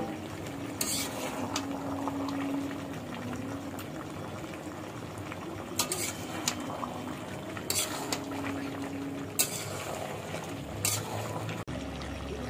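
Duck curry bubbling and sizzling in a wok while a spatula stirs it, scraping and knocking against the pan several times.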